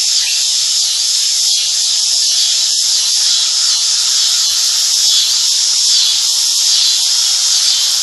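Loud, steady, high-pitched insect chorus, a dense shrill drone that swells and fades in an even rhythm.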